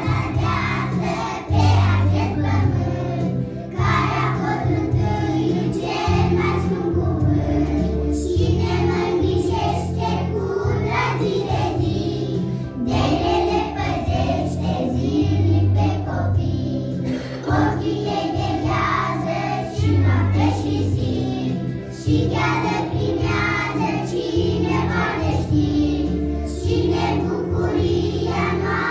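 A group of young children singing a song together over an instrumental accompaniment with a steady bass line.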